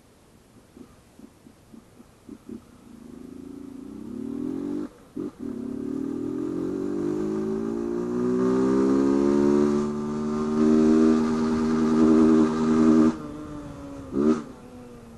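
Honda CG 160 Fan single-cylinder four-stroke engine running with its air-intake hose removed, giving a loud, raw intake sound as it accelerates. After a few short blips its pitch climbs, with a brief break about five seconds in, holds high and loud, then drops off sharply near the end, followed by one short blip of throttle.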